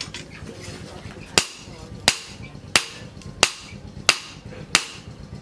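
Hand hammer striking a red-hot leaf-spring steel billhook blade on a steel post anvil. The sharp metallic blows come in an even rhythm, about three every two seconds, starting about a second and a half in.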